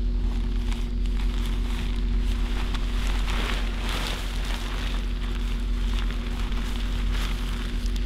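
Crinkly rustling of a nylon camping tarp being unfolded and shaken out on grass, busiest about three to four seconds in, over a steady low hum.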